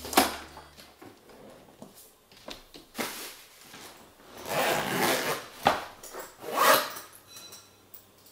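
A suitcase being handled and set upright: a sharp knock at the start, then a few scraping and rubbing noises, the longest about half a second, with a click between them.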